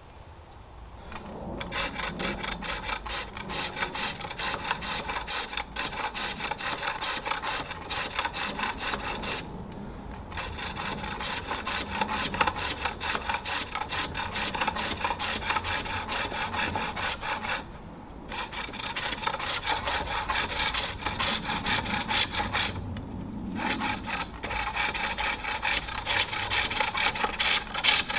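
Hook tool cutting the inside of a green-wood bowl on a pole lathe: a rasping cut on each stroke of the treadle-driven cord, about two a second, stopping briefly three times.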